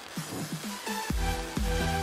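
Electronic background music: a few falling bass notes, then a heavy bass beat comes in about a second in.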